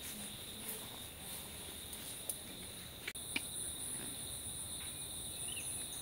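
Steady chorus of insects: two unbroken high-pitched drones, one above the other, with a few faint clicks around the middle.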